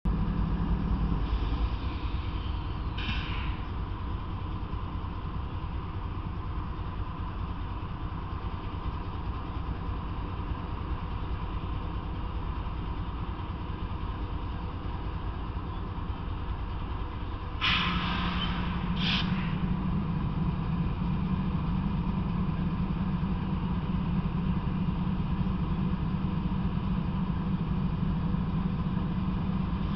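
Diesel freight locomotive idling at a standstill: a steady low engine rumble that steps up louder about two-thirds of the way through. Short hisses come twice near the start and twice as the engine note rises.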